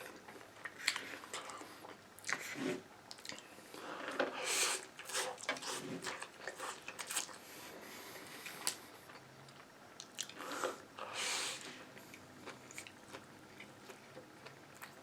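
Close-miked mouth sounds of a person biting and chewing Panda Express takeout food, in irregular bursts that are busiest around four to five seconds in and again around ten to eleven seconds in.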